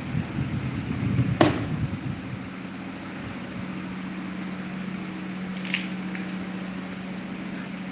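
Electric table fan running: its airflow buffets the microphone, there is a sharp click about a second and a half in, and after about two seconds the buffeting drops away, leaving a steady motor hum.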